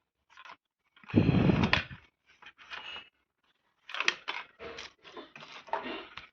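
Hands handling an opened laptop and its parts: a dull knock and rustle about a second in, then a string of small clicks and taps.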